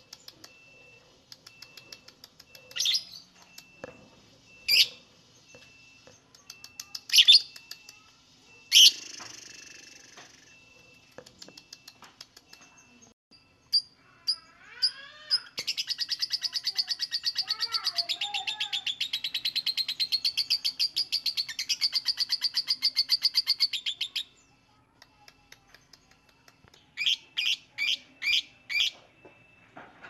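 Fischer's lovebird calling. First come a few sharp, loud single chirps, then a long, rapid rattling trill lasting about nine seconds, the chattering 'ngekek' song that lovebird keepers try to draw out. A quick run of five chirps follows near the end.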